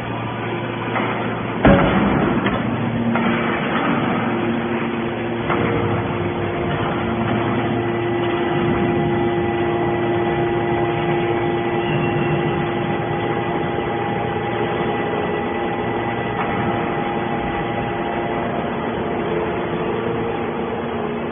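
Hydraulic scrap metal baler running: a steady machine hum with several held tones, a loud metallic bang about two seconds in, and more metal clatter over the next few seconds.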